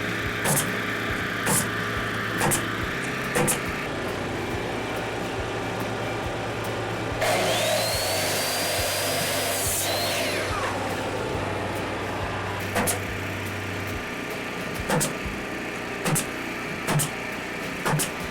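A power tool spins up with a rising whine about seven seconds in, runs at a high steady pitch for about three seconds, then winds down. Sharp knocks, like hammer blows on wood, come about once a second before it and at uneven spacing after it, over a steady low hum.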